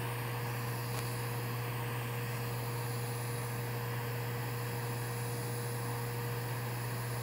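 Steady low electrical hum with a fainter, higher steady tone above it, and a faint click about a second in.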